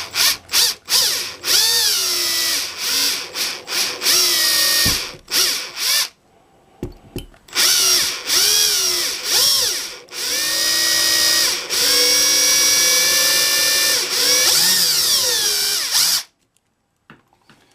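Small electric drill with a fine bit run against the core retention pin of a brass padlock, triggered in short bursts and then in longer runs, its whine rising and falling with motor speed; it stops near the end.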